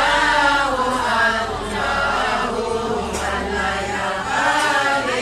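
A group of men chanting a devotional song together, a Daira chant, with several voices overlapping in a slow, continuous line.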